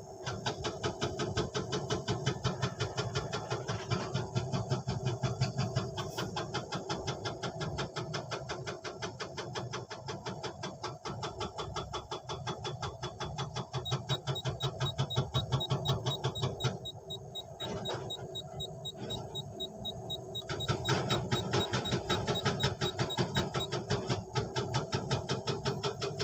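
An engine or motor running steadily with a fast, even pulse. It drops a little past the middle and picks up again near the end.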